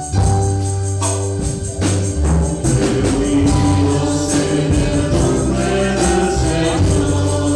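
Entrance hymn sung by a choir and congregation over band accompaniment: a steady bass line, sustained instrumental notes and percussion keeping a regular beat.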